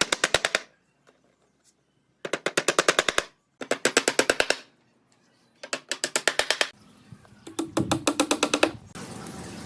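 Rapid mechanical knocking in about five bursts of roughly a second each, some ten sharp strikes a second, with short pauses between bursts. A low hum joins the last burst, and a steady noise follows near the end.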